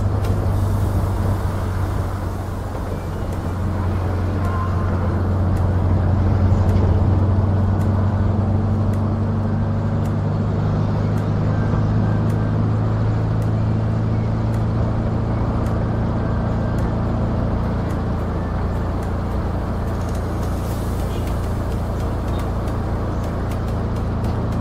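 A mikrolet minibus's engine running as it drives, a steady low hum over road noise, its pitch shifting now and then with speed.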